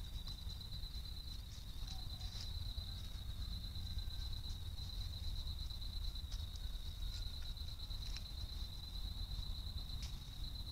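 Crab-eating fox foraging in dry leaf litter: faint scattered ticks and rustles from its steps and feeding. Behind it runs a steady high-pitched pulsing trill and a low rumble.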